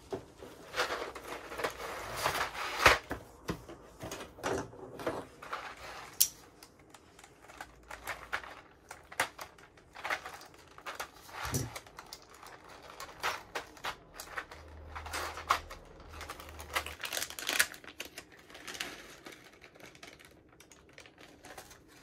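Irregular small plastic clicks and clatters of keyboard keycaps being handled, a few clusters of quick clicks between single ones.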